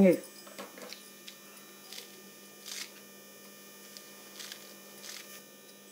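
Kitchen scissors snipping through fresh coriander stems and leaves: several faint, short cuts spaced out over a few seconds, over a steady electrical hum.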